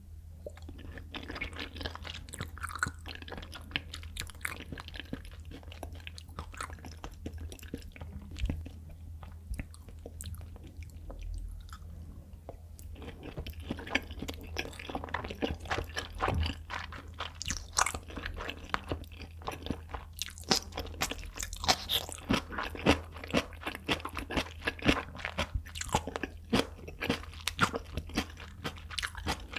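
Close-miked chewing of raw tuna sashimi: many small mouth clicks and smacks, sparser with a quieter spell about a third of the way in, then denser and louder through the second half, over a steady low hum.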